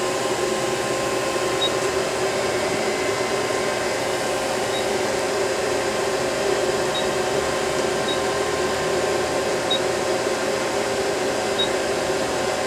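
Steady mechanical hum of an Okuma Cadet LNC-8C CNC lathe standing powered up but not cutting, with a few faint, short, high beeps every second or two.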